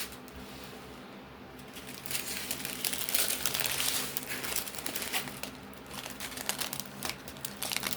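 Small plastic bags of diamond painting drills crinkling and rustling as they are handled, quieter at first, then a dense run of crackling from about two seconds in.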